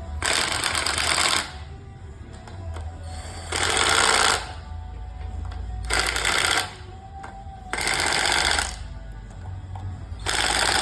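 Handheld power tool run in five short bursts of about a second each, with a radio playing music underneath.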